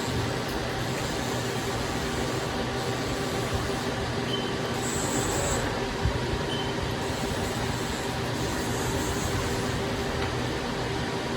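Haas ST-30Y CNC lathe running: a steady machine hum with several fixed tones, with a few short high chirps and a high hiss that comes and goes.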